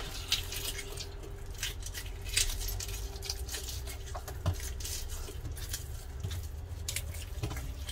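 Fingers rubbing the scales off a large grass carp in a sink, the scales already loosened with boiling water: an irregular run of light scratching and crackling clicks.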